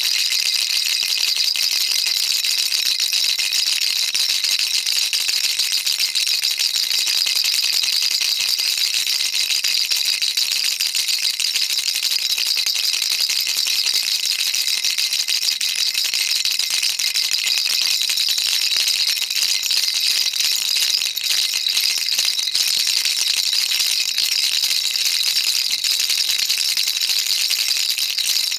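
Baby rattle shaken without pause, a dense, even rattling with many fine clicks and no breaks.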